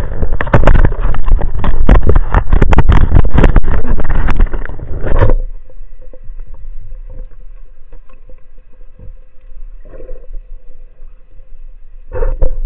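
Water noise heard underwater: loud rushing and clicking of water against the camera for about five seconds, which cuts off suddenly to a much quieter background with a faint steady hum.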